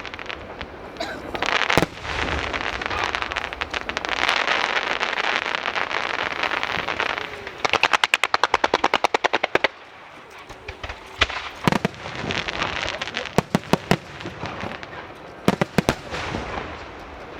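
Fireworks going off: sharp bangs of bursting shells with dense crackling between them. Midway comes a rapid string of pops, about ten a second for some two seconds, followed by scattered single bangs.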